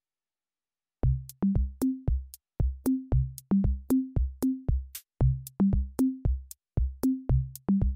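Electronic background music: a drum-machine beat of short, punchy low notes stepping between a few pitches, with crisp clicks on each beat. It starts about a second in.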